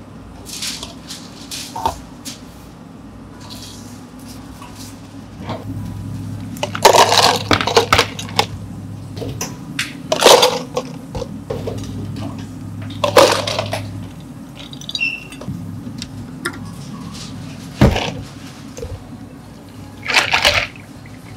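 Ice cubes scooped with a metal ice scoop and tipped into plastic cups, clattering in a few loud bursts with smaller rattles and knocks in between.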